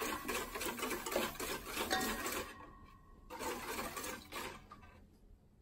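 Wire whisk beating a liquid egg-yolk and sugar mixture in a stainless steel mixing bowl, a fast scraping rattle of wires against metal. It stops about halfway through, comes back for about a second, then stops again.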